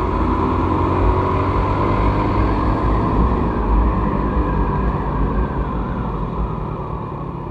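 Small single-cylinder Yamaha motorcycle engine running under way in traffic, with heavy low wind rumble on the camera microphone. The sound is steady and eases off slightly near the end.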